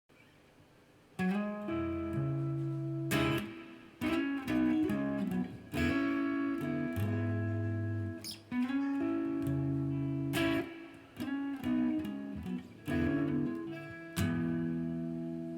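Guitar played: chords and picked notes struck every second or two, each left to ring, starting about a second in. It is recorded raw through a USB condenser microphone, with no processing.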